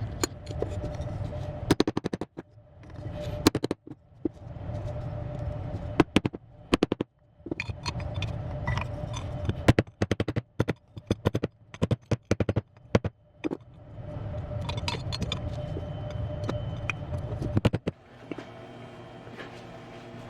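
Small metal parts clinking, knocking and scraping as they are handled and fitted, over a motor hum that starts and stops several times and cuts out near the end.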